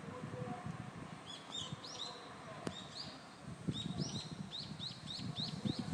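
A songbird calling: short chirps that rise and then fall in pitch, first scattered and then, near the end, a quick run of about five a second. Low rustling noise runs underneath.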